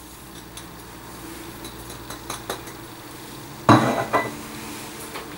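Brown sugar poured from a bowl into a frying pan of red onions, with a low sizzle and a few faint ticks; about three and a half seconds in, a loud clink of kitchenware with a short ring, then a smaller knock.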